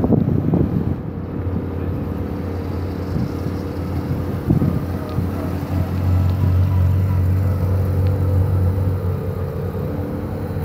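A classic Mini cabriolet's A-series four-cylinder engine running as the car drives slowly past and away, a steady low hum that is strongest a few seconds in as it goes by.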